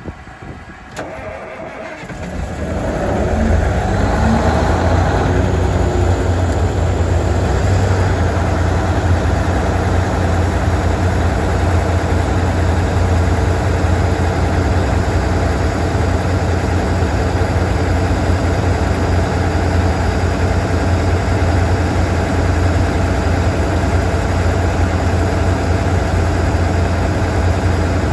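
Cummins QSX15 diesel engine of an Ingersoll Rand 1300WCU towable air compressor starting about two seconds in, then running at a low, steady idle. A faint rising whine sounds for a few seconds after it catches.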